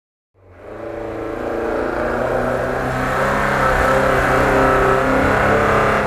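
Off-road vehicle engine running steadily at a fairly even pitch, fading in after a brief silence at the start.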